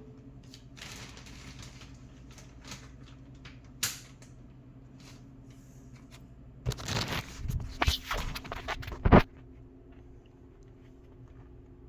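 Handling noises at a steel tool chest: a light click about four seconds in, then a couple of seconds of rustling and knocks ending in a sharp clack, as a magnet is put on to hold a plastic cover down. A faint steady hum sits underneath.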